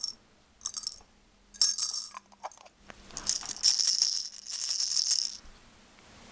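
Several small plastic dice rattling inside a clear plastic hexagonal trick case as it is shaken, in three bursts, the last and longest lasting about two seconds.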